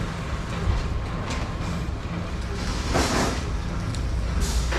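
Electric arc welding on steel roof supports: an uneven crackle and sizzle of the arc, swelling louder about three seconds in, over a steady low rumble.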